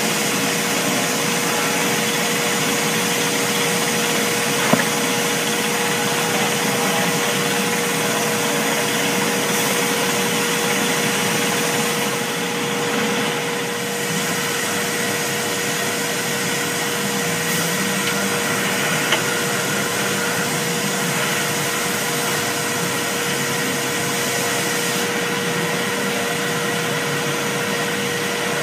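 Guyson spindle-blast machine and its dust-collection system running: an even, steady hiss with a steady hum, broken by a couple of brief clicks.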